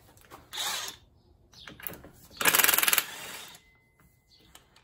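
DeWalt impact wrench hammering on a nut to loosen it. There is a short burst about half a second in, then a louder, longer burst of rapid hammering around two and a half seconds in.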